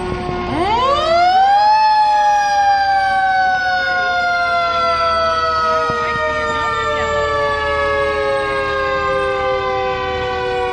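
Fire engine's mechanical siren winding up sharply in pitch over about a second, then slowly coasting down.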